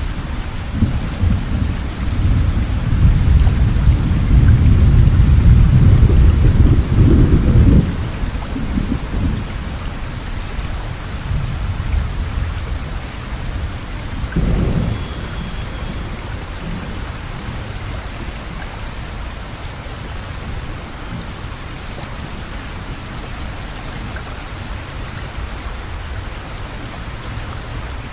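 Steady rain falling, with a long rolling rumble of thunder over the first eight seconds that dies away, and a shorter rumble of thunder about halfway through.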